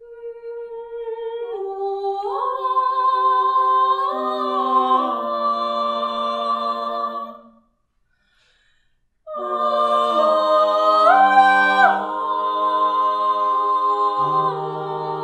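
Six-voice mixed a cappella ensemble singing a wordless opening in close harmony. A single high voice starts alone and others enter one after another, building to a full held chord that cuts off cleanly about halfway through. After a short silence the group comes back in together on a full chord, with a low bass voice joining near the end.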